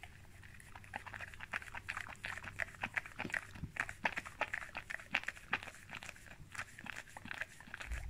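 Labrador-mix dog licking foam off a hand: a quick, irregular run of lapping smacks, several a second, starting about half a second in.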